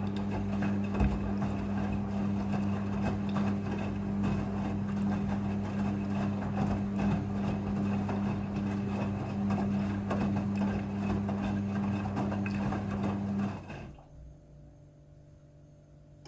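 Front-loading washing machine running in its rinse cycle: a steady hum under a noisy rush. It cuts off suddenly near the end.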